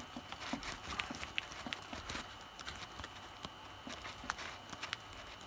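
Irregular light clicks and taps from fingers handling a stunt kite's spar and sail while moulding warm polymorph plastic around the spar's end.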